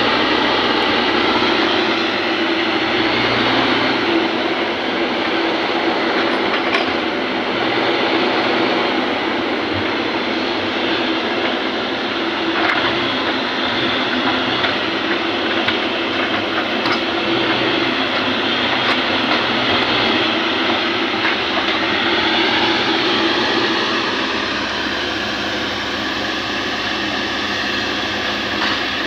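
Kobelco excavator's diesel engine running steadily at working revs, a loud continuous drone with the noise of the machine working.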